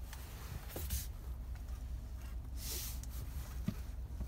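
Low steady rumble inside the cab of a GMC Denali pickup creeping along at walking pace, with a few brief swishing sounds and a small click.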